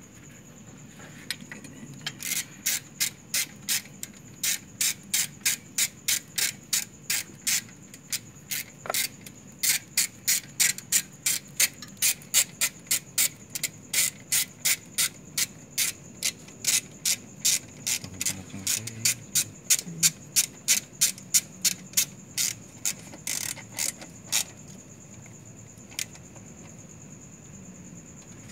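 Ratchet wrench worked back and forth in quick, even strokes, its pawl clicking about two to three times a second for some twenty seconds and then stopping.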